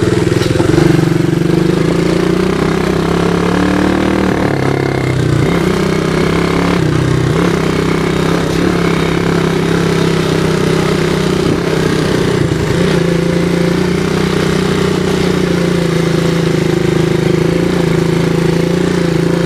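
2015 Coolster 125cc ATV's small single-cylinder engine running while the quad is ridden, its pitch dipping and wavering a few seconds in before holding fairly steady. The carburettor has a lean spot, by the rider's account.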